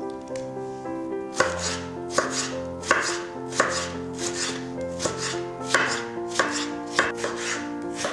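Chef's knife chopping eggplant flesh on a bamboo cutting board: about ten sharp strokes at an even pace, starting a second or so in, over soft background music with held notes.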